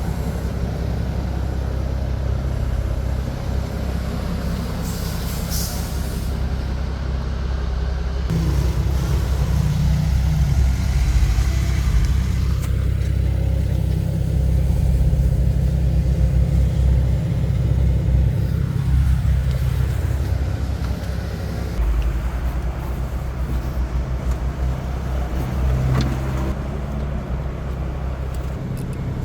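Steady low rumble of an engine running at idle.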